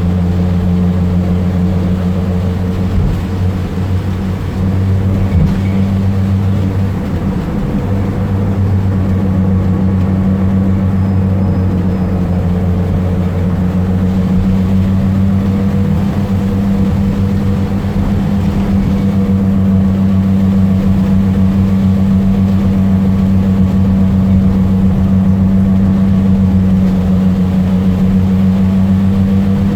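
Fiat Ducato minibus engine running under way, a loud steady low drone with fainter wavering tones above it.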